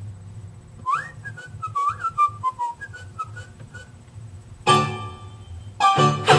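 A high whistle-like tone that sweeps up, then falls away in a run of short notes with faint clicks. Music with several instruments starts about four and a half seconds in and comes back louder near the end.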